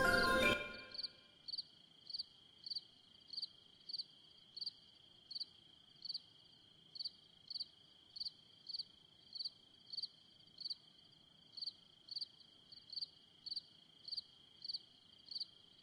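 Crickets chirping at night: short, evenly spaced high chirps, about one every two-thirds of a second, over a steady high insect trill.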